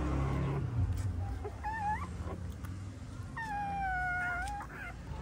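Newborn puppies crying with high, thin squeals: a short one about two seconds in, then a longer one lasting about a second, falling slightly in pitch.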